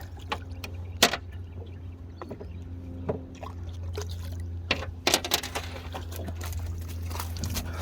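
Water splashing and trickling as a fish is netted beside the boat, with a few sharp knocks against the hull or gear, over a steady low hum.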